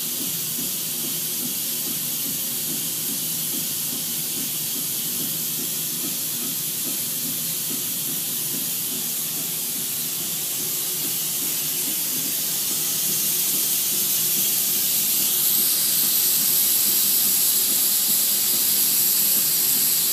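Steady hiss of cold helium gas venting at the service turret of a GE 1.5 T MRI magnet as the magnet is ramped up, with a low flutter underneath. The hiss grows louder about two-thirds of the way through, with a brief rising whistle.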